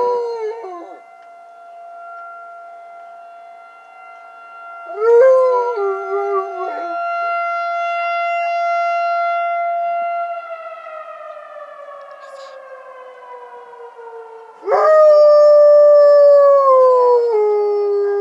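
A dog howls along with a tornado warning siren. The siren holds one steady pitch, then slowly slides down in pitch from about ten seconds in as it winds down. The dog's howls fall in pitch: one trailing off at the start, one about five seconds in, and the loudest, a long howl from about fifteen seconds in.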